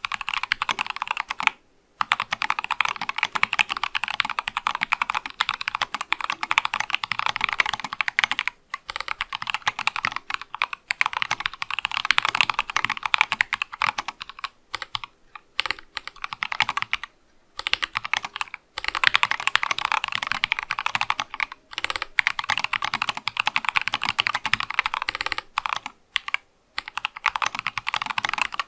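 Fast typing on an Acrylic Sesame mechanical keyboard fitted with C3 Kiwi tactile switches: a dense, continuous stream of key clacks, broken by a few short pauses.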